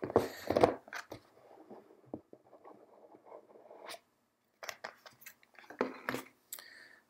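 Small cardboard game box being opened by hand: the lid scrapes and rubs as it is slid off the base, with rustling and a few light knocks of cardboard on the table. The loudest rustle comes right at the start, and the knocks come near the end.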